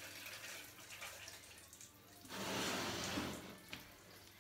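Hand shower spraying water over a cat being bathed, a steady hiss and patter of water that grows louder for about a second in the middle.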